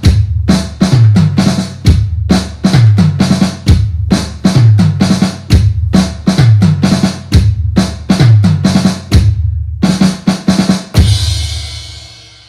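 Intro music built on a loud drum-kit beat with heavy bass drum hits, ending on a cymbal crash that rings and fades out near the end.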